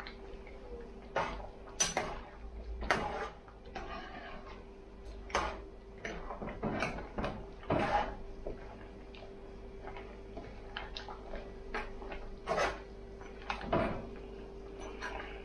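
A large metal spoon stirring thick curry goat stew in a metal Dutch pot, clinking and scraping against the pot's side in irregular knocks, more than a dozen of them.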